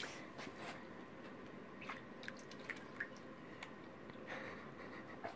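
Small dog playing in a shallow basin of water: faint, irregular small splashes and drips, roughly one every half second.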